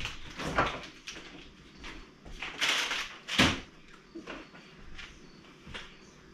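Refrigerator door opened and shut, with knocks and rustles of things being moved on its shelves. A sharp knock about three and a half seconds in is the loudest sound.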